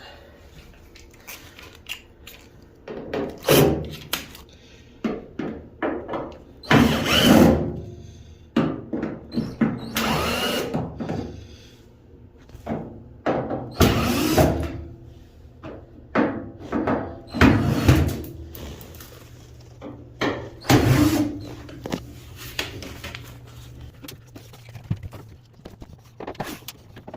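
Power drill-driver with a Torx bit unscrewing the screws that hold a washing machine's rear metal panel, running in about six short bursts, with knocks of metal and tools between them.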